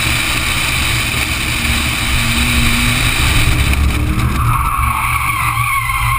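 V8 race car engine running hard under wind rush on an outside-mounted camera. About four seconds in the tyres start a wavering squeal as the car slides off the track onto the grass: the driver has lost control.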